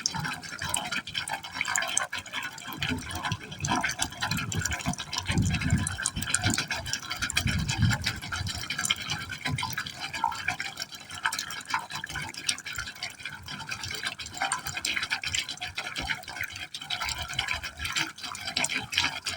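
Water pouring steadily into a pipe hole, splashing and gurgling without a break, with deeper gulping surges a few seconds in.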